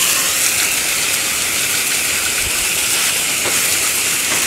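Garden hose spray nozzle hissing steadily as a jet of water rinses soap foam off a car wheel and tyre.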